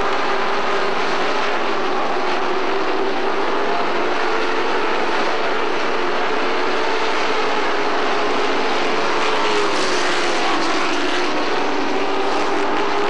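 Race trucks' engines running at racing speed in a continuous loud drone, the pitch wavering slightly as the pack goes around.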